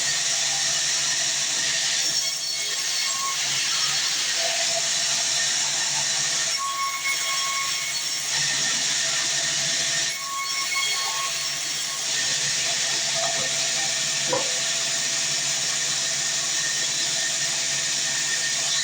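Sawmill saw cutting through a fresh mahogany log: a steady, loud hiss with a faint whine running through it.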